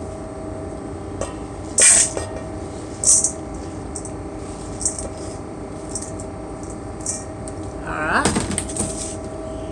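Chopped bacon scraped off a plastic cutting board into a stainless steel mixing bowl: a few short scrapes and knocks of the board against the bowl, the loudest about three seconds in, over a steady machinery hum.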